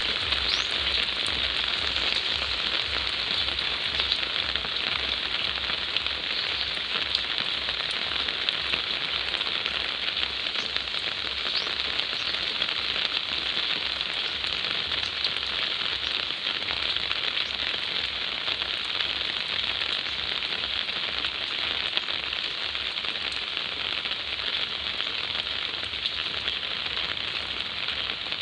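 Steady rain falling: a dense, even hiss of drops with many small crackling ticks.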